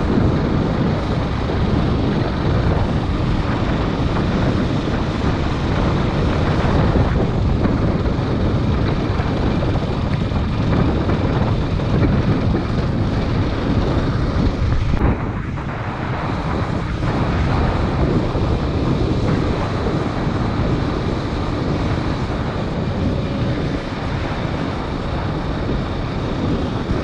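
KTM 250 Duke's single-cylinder engine running as the motorcycle is ridden off-road, largely buried under heavy wind noise on the microphone.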